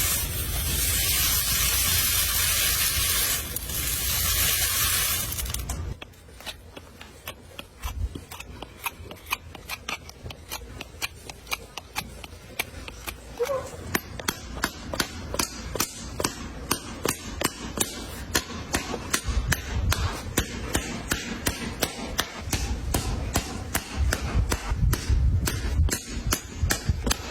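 A loud, even hiss for about six seconds, then a long run of rasping strokes from a hand rasp, about two to three a second, growing louder toward the end.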